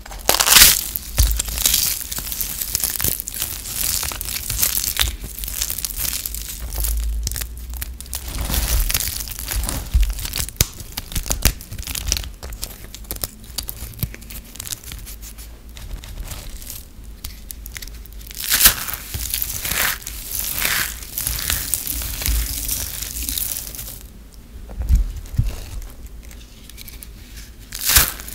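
Hands crushing and crumbling dry, crispy recycled soap pieces and shavings: a steady crackling and crunching, with a few sharper crunches about half a second in and again near the end.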